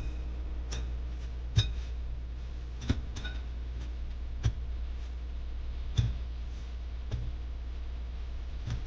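Spoon clinking against a bowl during a cereal breakfast: short light clicks at irregular intervals of about one to one and a half seconds, over a steady low hum.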